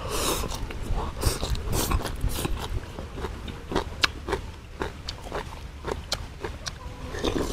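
A person chewing a mouthful of raw rau đắng (bitter herb) with fish porridge, picked up close by a lapel microphone. Wet smacking and irregular sharp clicks, busiest in the first couple of seconds.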